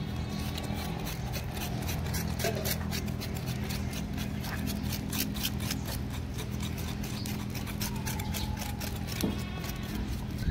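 Knife blades scraping and tapping singed goat trotters, a rapid irregular run of scrapes and clicks as the burnt hair and skin are cleaned off. A steady low hum runs underneath.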